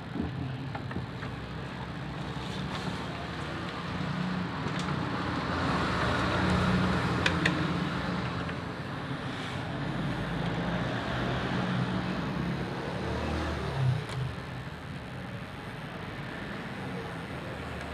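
Steady hiss of static from a Sanyo CRT television's speaker as its tuner is checked on antenna, swelling a little in the middle, with a low hum underneath and a few faint clicks.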